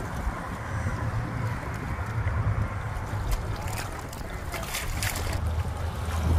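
Wind buffeting the phone's microphone, a steady low rumble, with a few brief faint scuffs or clicks about halfway through.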